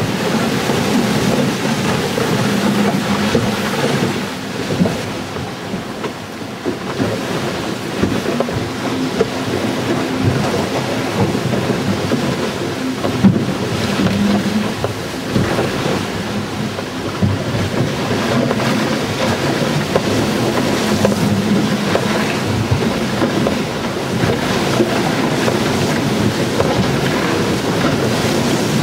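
Steady loud rush of wind and water on a CATRI 24 trimaran's hull as it sails fast through rough, breaking seas, heard from inside the cabin, with a few louder knocks as waves strike.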